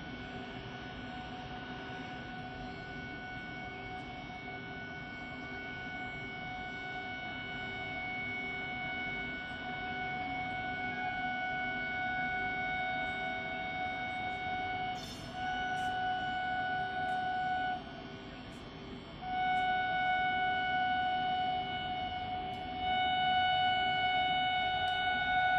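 Locomotive horn sounded in long, steady blasts of several tones at once, broken by short pauses, growing louder as the train approaches.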